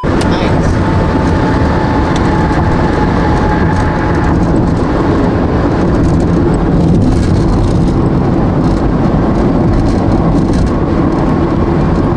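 Loud, steady wind and road noise rumbling on the microphone inside a moving car. A faint steady whine sits over it for about the first four seconds, then stops.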